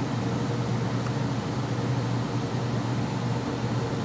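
Room air conditioner running: a steady hum and whoosh.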